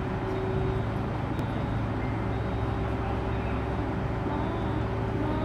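Heavy vehicle's diesel engine running steadily, a low even hum with no change in speed.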